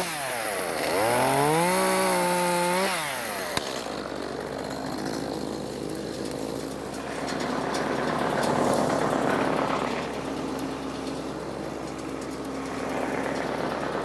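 Echo two-stroke chainsaw revved twice, its pitch climbing and dropping back each time, then running with a rough, noisy sound for the rest, typical of the chain biting into an oak branch.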